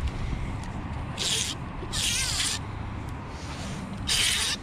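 Fly line zipping through the rod guides in three short rasping pulls while a hooked coho salmon is being played on a fly rod.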